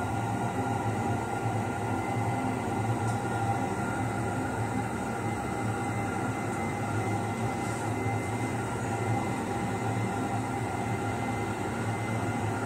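A steady machine hum, a low drone with a few constant tones over it, unchanging in level.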